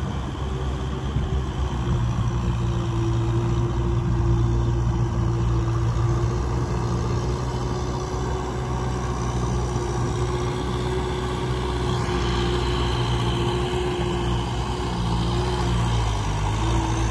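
Kubota M6040SU tractor's four-cylinder diesel engine running steadily under load while it drives a rotary tiller through flooded paddy mud, its note dipping briefly near the end.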